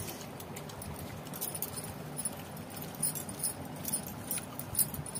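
Eating by hand: rice and curry being mixed on a banana leaf, with irregular small wet clicks and smacks, a few sharper ones in the second half.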